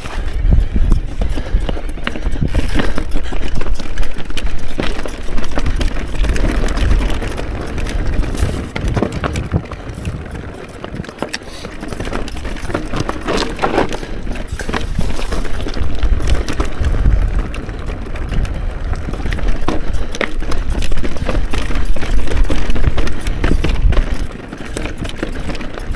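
Electric mountain bike (Mondraker Crafty) ridden over rough rocky trail: tyres rolling over rock and the bike rattling, with many short knocks. Wind rumbles on the action camera's microphone throughout, and the noise surges and eases as the speed changes.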